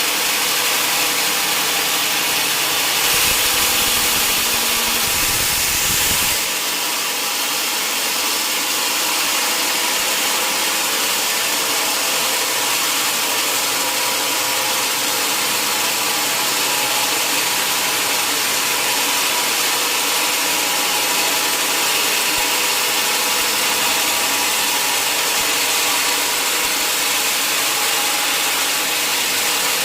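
Sawmill saw and its drive running steadily, a continuous hiss over a steady hum. A louder low rumble comes in about three seconds in and stops about three seconds later.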